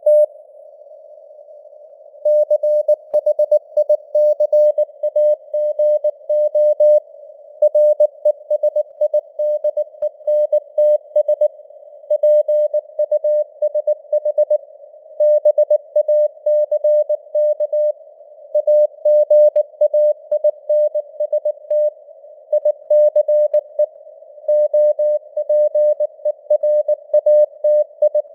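Morse code sent at 19 words per minute: a single mid-pitched tone keyed on and off in quick dots and dashes, over a narrow band of hiss of simulated radio noise. There is a pause of about two seconds near the start.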